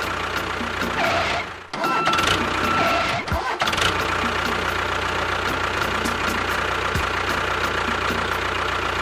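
An engine running steadily, with a brief drop-out about two seconds in.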